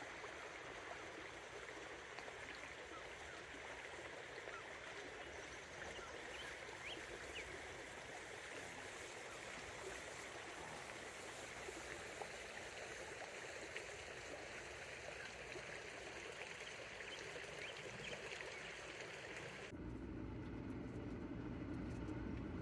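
Steady rush of a creek's flowing water, with a few faint short high sounds over it. Near the end it cuts abruptly to a lower, duller steady noise.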